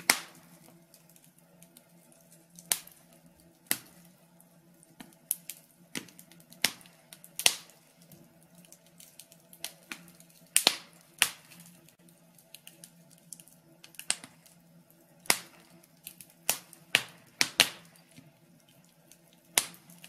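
Wood fire crackling in a fireplace: irregular sharp pops and snaps, about one a second and some much louder than others, over a faint low steady hum.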